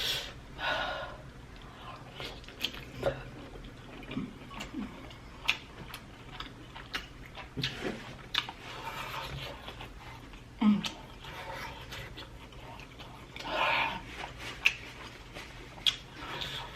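Close-miked chewing and eating of spicy sauced prawns: a run of wet mouth clicks and smacks, broken by a few heavy breaths from the heat of the sauce.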